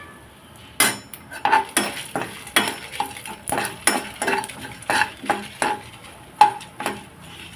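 A spoon scraping and stirring dry spices being roasted in a little oil in a pan (dried red chillies, pepper, cumin, fenugreek and coriander seeds), in quick irregular strokes of about two a second.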